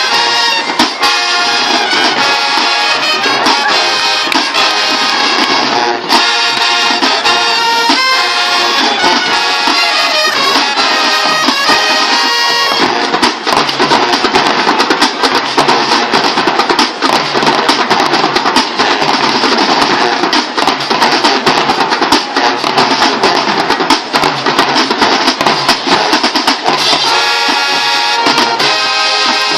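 High school marching band playing loudly, with brass over a steady drum beat; from about thirteen seconds in the sound thickens into a dense wall of brass and drums until near the end.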